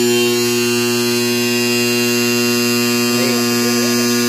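Bus engine running with its air compressor charging, a steady buzzing hum, while the compressor line blows air out through a hose into a bucket of water, the test run after the line has been flushed clean.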